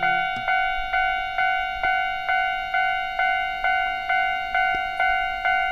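Japanese railroad crossing warning bell ringing steadily, about two strikes a second, each ringing out before the next. A guitar chord dies away right at the start.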